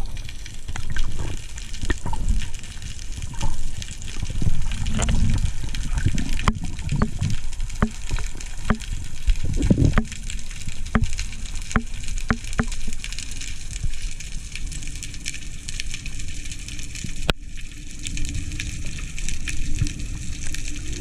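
Water rushing and churning as heard underwater: a steady low rumble with a scattering of sharp clicks and knocks.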